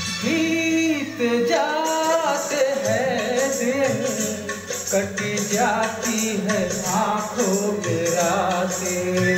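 A man singing into a handheld microphone over a recorded music backing track, his voice gliding and bending between held notes.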